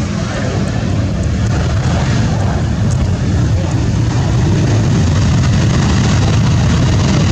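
Boeing 737 jet engines heard from beside the runway during the landing rollout: a loud, steady, deep rumble that grows louder over the first few seconds.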